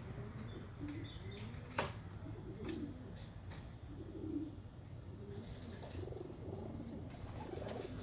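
Young homing pigeons cooing softly, a series of low, soft coos, with one sharp click about two seconds in.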